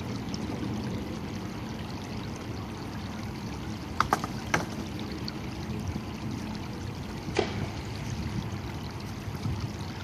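Shallow rocky creek running steadily over stones, with a few sharp knocks: three close together about four seconds in and one more past seven seconds.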